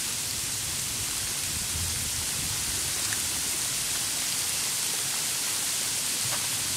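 Steady rain falling on a wet forest, an even hiss with a few single drops ticking faintly.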